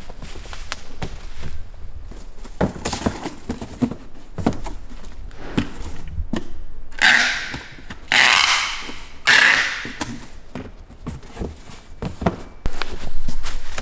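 Packing tape pulled off a handheld tape dispenser in three long rips, sealing the bottom of a cardboard shipping box. Around it, cardboard and a cloth bag are handled with light knocks and thunks.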